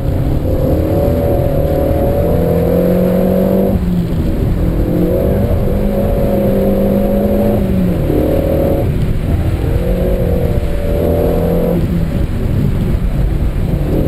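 Renault Mégane RS's turbocharged four-cylinder engine heard from inside the cabin, driven hard: the engine note climbs in pitch under full throttle and breaks off, four times over, as the driver shifts or lifts between bursts, over a steady low road rumble.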